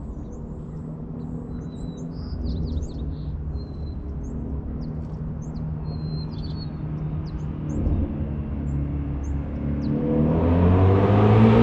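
A 2018 Ford Mustang Shelby GT350's 5.2-litre flat-plane-crank V8 approaching from a distance, its exhaust getting steadily louder and much louder over the last couple of seconds as the car nears. Small birds chirp during the first half.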